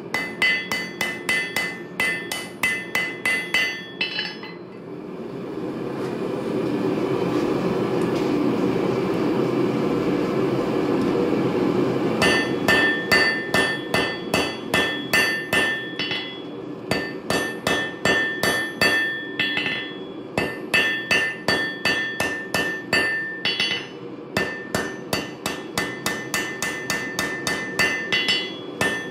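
Hand hammer forging a red-hot railroad spike on a steel anvil, each blow ringing, in runs of about three to four strikes a second with short pauses between runs. From about 4 to 12 seconds in, the blows stop and a steady rushing roar takes over.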